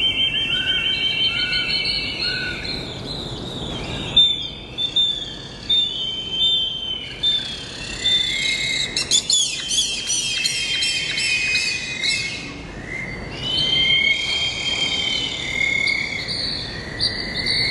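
Birds calling: rapid trills, short chirps and runs of quick falling whistles from several birds, over a steady low background noise.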